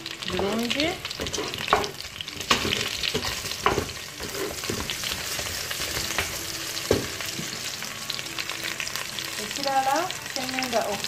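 Meat pieces and smashed garlic frying in ghee in a steel pot, sizzling steadily while a spatula stirs them, with scattered clicks and scrapes of the spatula on the pot. A short spoken word comes near the start.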